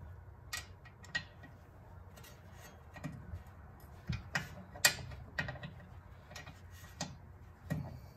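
About a dozen sharp metallic clicks at irregular intervals, from a hand wrench working a bolt on the front brake caliper. The loudest click comes a little before the five-second mark.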